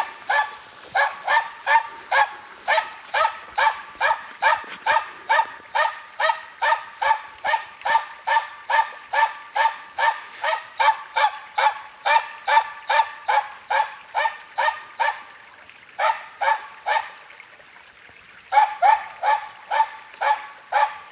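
Finnish Spitz bird dog barking fast and evenly, about three barks a second, with a short break about three-quarters of the way through. It is baying a treed capercaillie to mark it for the hunter.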